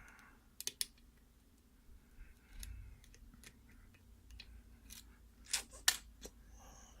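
Light, sharp metallic clicks and taps of lock picks and a tension wrench being handled at a mortise lock cylinder, scattered irregularly, the two loudest near the end.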